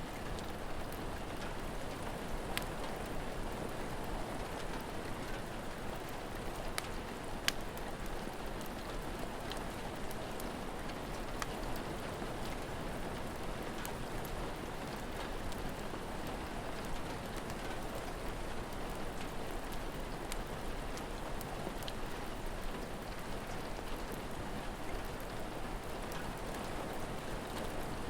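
Steady rain falling, with sparse sharp crackles from a wood fire scattered through it, one louder pop about seven seconds in.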